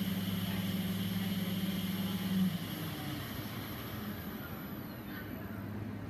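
Steady machine hum from a Primix 40-40 nanomixer setup during a run. After a brief swell about two and a half seconds in, the higher part of the hum cuts off, leaving a lower steady hum.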